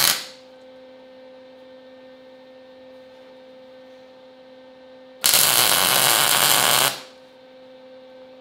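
MIG welder tack-welding a steel hinge bracket: an arc burst is dying away at the very start, and a second tack runs for about a second and a half, starting about five seconds in. Between the tacks there is a steady low hum.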